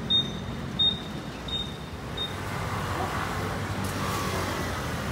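Roadside traffic with a steady low engine hum, and a vehicle passing louder in the second half. Short high electronic beeps repeat about every 0.7 s in the first two seconds and fade out.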